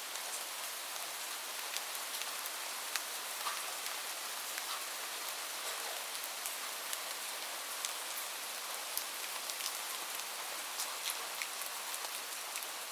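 Light rain falling steadily: an even hiss with scattered individual drops ticking sharply on a surface.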